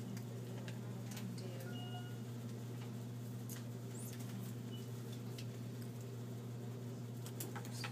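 A steady low electrical hum with scattered faint plastic clicks and rustles as IV tubing and supplies are handled.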